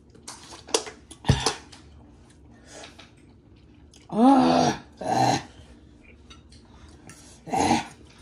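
Dishes and cutlery clattering: a cup and fork knocking against plates and the table, with one heavy knock about a second in. Then a few short wordless vocal sounds from people eating very hot noodles, the loudest about four seconds in.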